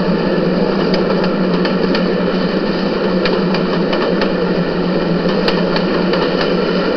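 OO gauge model trains running on the layout: a steady motor hum and wheel rumble, with light clicks several times a second as wheels pass over the rail joints.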